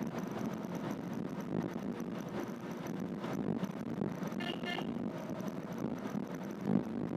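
Cabin noise inside a moving Renault Triber AMT: a steady low rumble of tyres, road and the car's three-cylinder engine, with the air-conditioning fan running. A brief higher tone sounds about four and a half seconds in.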